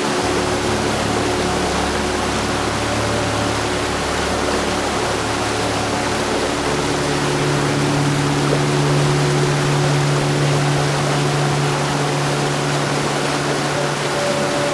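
Heavy rain falling as a steady, even hiss. Low sustained tones hum underneath and step up in pitch about seven seconds in.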